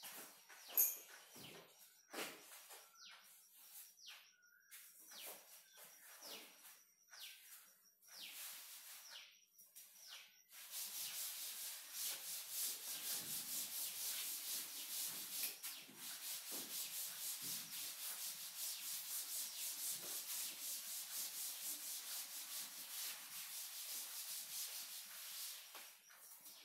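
Short scratchy strokes of writing on a board or page, then from about ten seconds in a steady back-and-forth rubbing at roughly two strokes a second, which stops shortly before the end.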